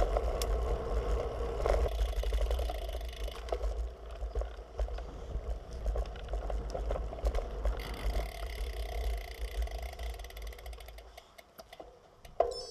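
Road bike riding over brick and concrete paving, with wind rumbling on the bike-mounted camera and the bike rattling and clicking over the joints. It dies away about eleven seconds in as the bike slows to a stop, and a sharp knock comes near the end.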